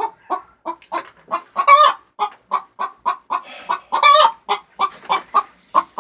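Hens clucking in quick short notes, a few a second, broken by louder, drawn-out squawks about two seconds in and again about four seconds in: agitated hens squabbling over a nest box.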